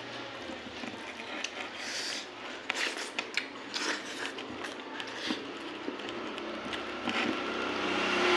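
A person eating rice and curry close to the microphone: chewing with a run of short, irregular mouth clicks and smacks.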